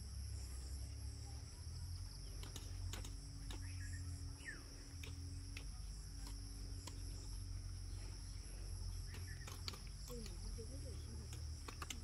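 Crickets chirring steadily in a high, even drone over a constant low rumble, with a few faint clicks and faint distant voices near the end.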